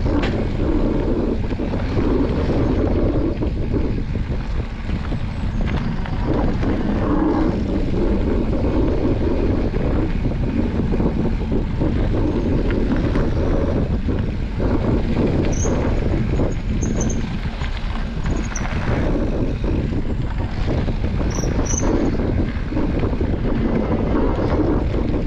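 Mountain bike riding along a dirt forest trail: steady wind noise on the handlebar camera's microphone, with tyre rumble and frequent small knocks and rattles from the bike over the bumps.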